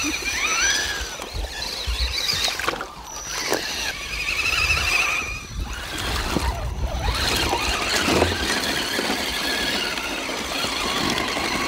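Electric drive motors and gearboxes of scale RC 4x4 crawler trucks whining, the pitch rising and falling with the throttle as the wheels spin through mud and slush.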